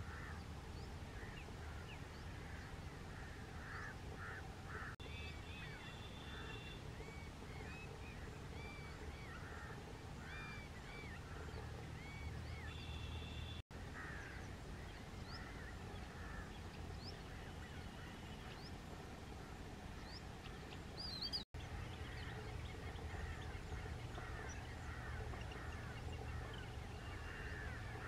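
A faint chorus of many small birds chirping and twittering, with a few brief level whistled notes, over a steady low hum. The sound breaks off for a moment twice.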